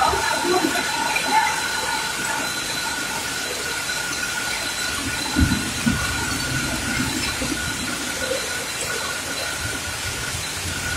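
Heavy rain pouring down in a steady, even hiss, with a low thump about five seconds in.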